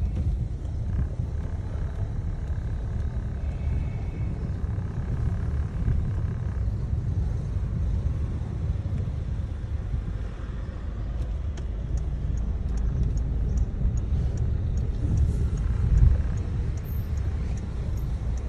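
Car interior while driving: steady low engine and road rumble, with a faint, evenly spaced ticking over the last few seconds and one louder low bump near the end.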